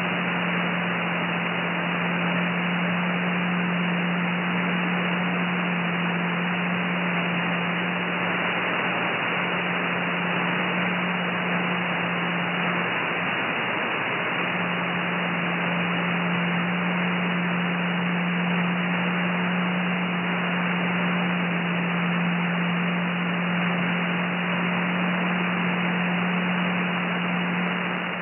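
Shortwave software-defined radio receiver tuned to the 30-metre amateur band near 10.140 MHz, giving out steady band hiss and static, with a low steady tone that drops out briefly about halfway through.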